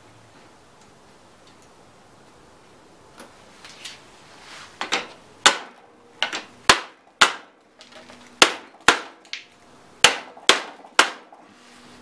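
Claw hammer tapping hard, metal on metal, on a stubborn steel pin in a Craftsman mower's self-propel wheel drive: about a dozen sharp blows in uneven groups, starting about five seconds in. The pin is stuck because the worn bearing has cut a groove into it.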